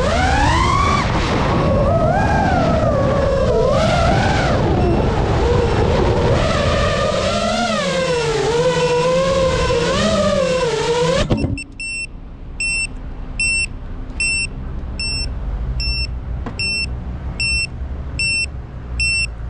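FPV drone's motors whining, the pitch sweeping up and down with the throttle, cut off abruptly a little past halfway. Then a high electronic beep repeats about twice a second.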